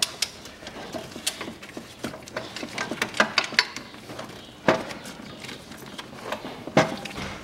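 Metal clinks and knocks of a ratchet and long 14 mm socket being fitted onto the alternator bracket bolts and knocking against engine-bay parts. There are three sharper knocks and a short run of quicker clicks around the middle.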